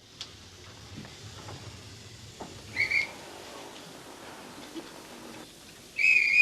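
Street-market ambience with a steady background hiss, broken by two short, shrill whistle-like calls: one about three seconds in and a louder one near the end.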